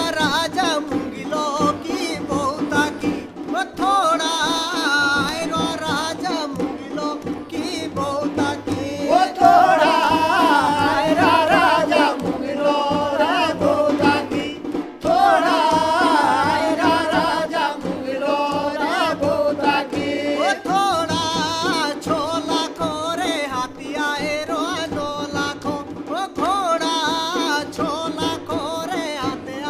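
A man singing a Jaunsari harul, a folk ballad, with a long, wavering melodic line over a steady accompaniment that includes percussion.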